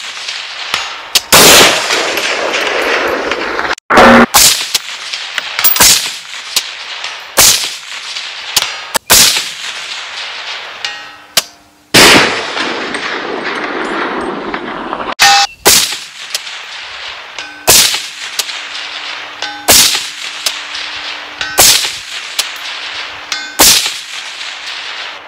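Semi-automatic rifle shots from a Fort Mills Firearms FMF15 piston AR-15 in 5.56, fired one at a time about every two seconds. There are about a dozen shots, each followed by a long echoing tail.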